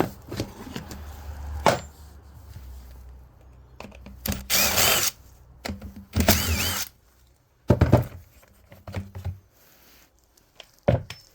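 Power drill run in two short bursts around the middle, drilling out a snapped-off fixing from a threaded hole, with sharp knocks and clunks of tools being handled before and after.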